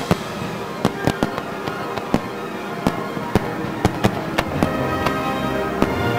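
Aerial firework shells bursting in a rapid, uneven string of sharp bangs, about two to three a second. Music with sustained tones plays underneath throughout.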